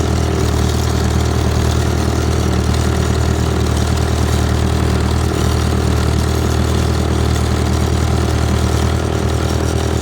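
Vintage farm tractor engine idling steadily.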